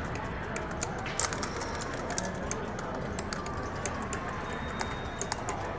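Exhibition-hall hubbub with scattered sharp clicks and clacks from working electromechanical pinball mechanisms on demonstration, a small cluster of them about a second in.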